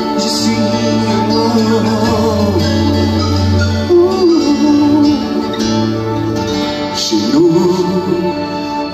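A man singing a song over a live band with electric guitar, bass guitar, keyboard and drums, with a sustained low bass line under the sung melody.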